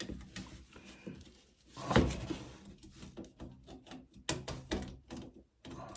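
Metal tools and parts clinking and knocking as chainrings are unbolted from a bicycle crank: one sharp knock about two seconds in, then scattered clicks.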